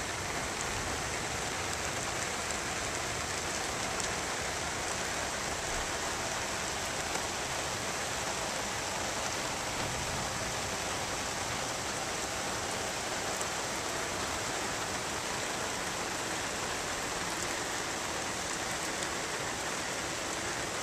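Heavy rain pouring down steadily onto waterlogged turf and standing water, an even hiss with no let-up.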